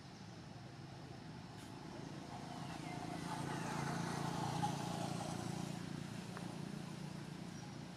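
A motor vehicle's engine passing by, growing louder to a peak about halfway through and then easing off a little.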